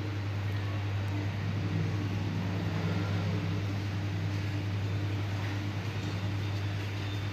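Steady low machine hum with a faint constant tone above it, unchanging throughout.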